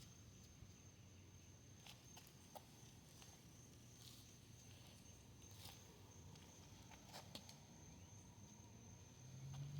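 Near silence, with a faint steady high-pitched tone and a few faint scattered ticks.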